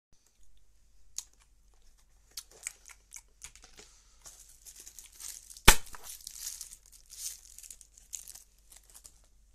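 Packaging torn open and crinkled by hand, with scattered small clicks and one sharp crack a little past halfway.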